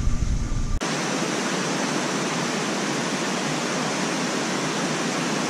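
Heavy rain pouring down in a steady, even hiss, which starts abruptly under a second in after a brief low rumble.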